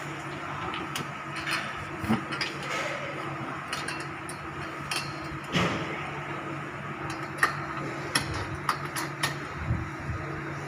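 Steel parts of a folding sit-up bench clinking and knocking as they are handled, with the long adjustment pin pushed through the holes of the backrest bar: a dozen or so scattered sharp metal clicks over a steady low hum.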